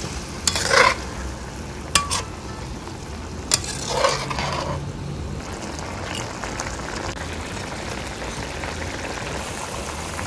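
Metal spatula scraping and tapping against a wok a few times in the first four seconds or so as it gently pushes tofu cubes through the sauce. Under it the mapo tofu sauce sizzles and simmers steadily.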